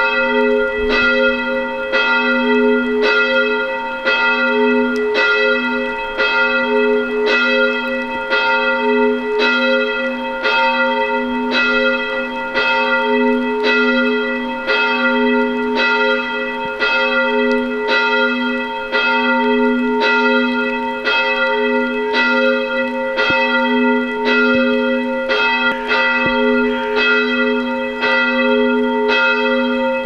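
Church bell tolling steadily at about one stroke a second, its hum ringing on between strokes.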